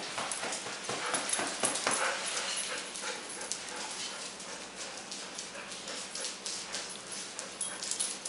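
Siberian huskies whining at a homecoming greeting, with many short clicks of claws on a tile floor as they move about.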